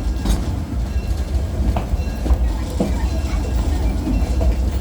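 Open-air ride train running along its track: a steady low rumble with scattered clicks and knocks from the wheels and cars.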